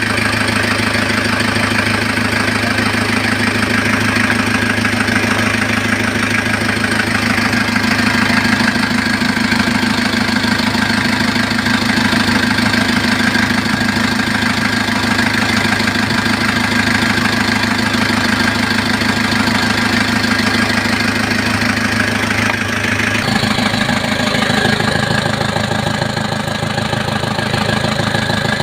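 Kia engine running steadily, freshly top-overhauled. About two-thirds of the way through its note changes and the low end grows stronger.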